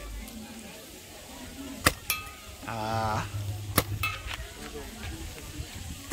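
Paintball marker firing single shots, sharp pops about two seconds apart. Twice a metallic ping follows a moment after the shot, as a paintball strikes a hanging metal target. A brief voice is heard in between.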